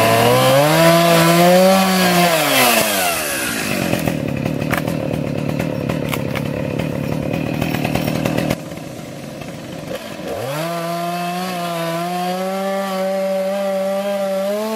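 Gas two-stroke chainsaw cutting into the base of a small tree trunk. It revs up and then falls back after a couple of seconds. It runs lower and rougher through the middle, then revs high again and holds steady for the last few seconds of the cut.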